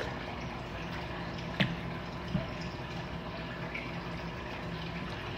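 Quiet eating of noodle soup: a sip of broth from a spoon at the start and a short sipping mouth sound about one and a half seconds in, over a steady low hum.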